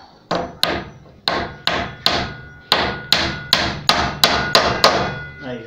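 Hammer driving nails through a wooden brace into a wooden door frame: about a dozen sharp blows in two quick runs with a short pause about two seconds in, the later blows leaving a faint ring.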